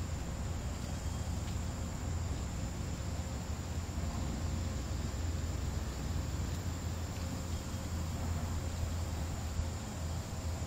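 Steady outdoor background: a continuous high-pitched drone of insects over a low rumble, with no distinct events.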